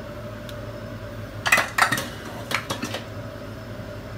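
Kitchenware clattering as a bowl and utensils are set down on the stove: two sharp clinks about a second and a half in, then three quicker knocks just before three seconds.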